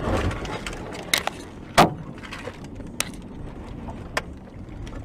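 Car crash ahead, picked up by a dash cam inside a moving car: a burst of noise as a car goes off the road, then a few sharp knocks, the loudest about two seconds in.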